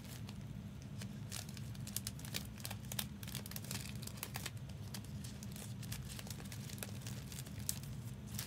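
Packaging being handled, crinkling with many irregular sharp crackles, over a steady low hum.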